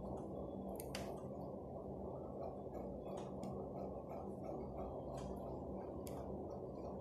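A steady low hum with a few brief, faint scratches of a fountain pen's metal nib on paper, scattered irregularly.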